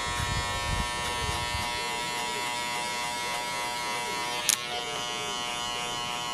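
Barber's electric hair clippers buzzing steadily while cutting a skin fade, with a low rumble in the first second and a half and one sharp click about four and a half seconds in.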